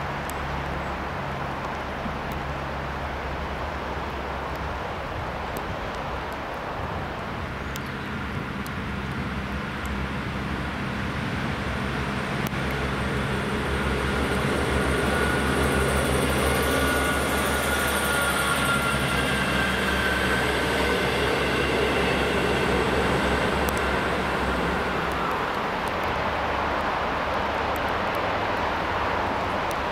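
British Rail Class 158 diesel multiple units running: first a steady low diesel engine drone, then a train passing closer and louder, with high whining tones in the middle.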